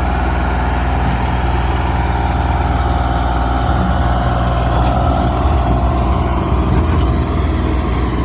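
Deutz diesel engine of a Blaw-Knox PF-150 asphalt paver running steadily while the machine is driven about, swelling slightly about halfway through.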